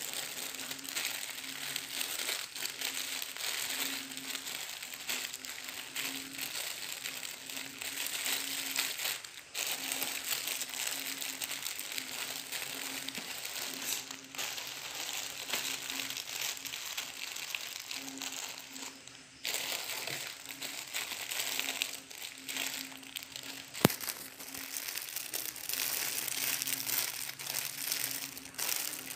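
Clear plastic packaging bags crinkling and rustling continuously as they are handled and pulled out of a cardboard box, with one sharp click about three-quarters of the way through.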